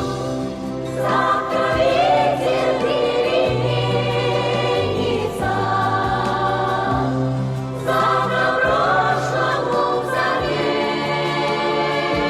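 Music: a choir singing sustained notes with vibrato over orchestral accompaniment with steady bass notes.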